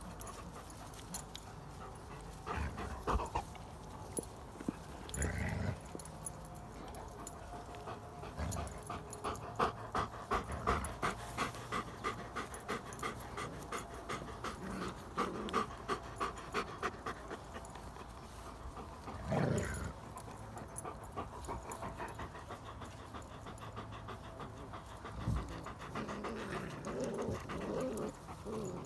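Adult Irish setter panting close by in quick, even breaths, about four a second, for roughly ten seconds in the middle. A few louder thumps and rustles come before and after.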